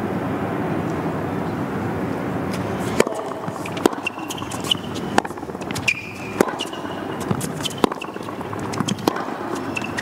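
Tennis rally on a hard court: sharp racket strikes and ball bounces about every half second to a second, starting about three seconds in, with short sneaker squeaks between the shots. Before the first strike there is a steady crowd murmur that dies down.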